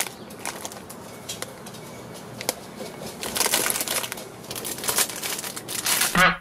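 Clear plastic treat bags crinkling and rustling as they are handled, an irregular crackle that grows busier in the second half.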